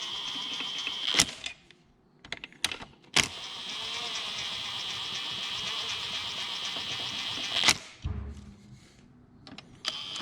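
A steady mechanical whir, like a small electric motor running, broken by a few sharp clicks and cutting out twice for a second or two.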